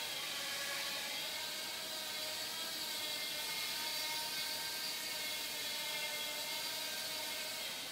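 Blade Nano QX micro quadcopter's four small brushed motors and propellers whining steadily in flight, the pitch shifting a little as the motors adjust.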